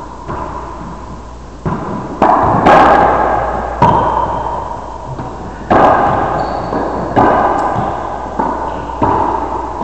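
Racquetball rally: about eight sharp, echoing cracks at uneven intervals as the ball is struck by racquets and smacks off the court walls, each hit ringing on in the enclosed court.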